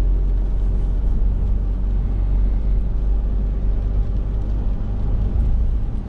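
Steady low rumble of a car on the move, heard from inside the cabin: engine and road noise.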